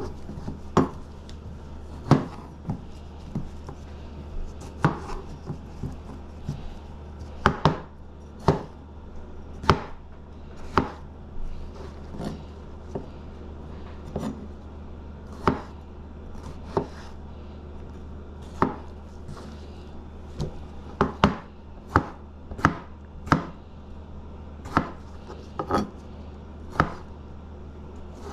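Knife chopping on a cutting board: single sharp strikes at an uneven pace, roughly one a second, over a steady low hum.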